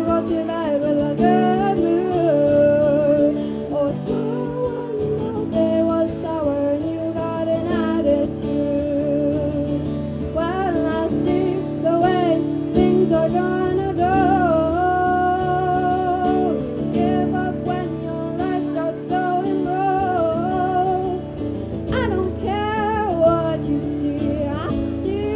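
A woman singing a song with guitar accompaniment.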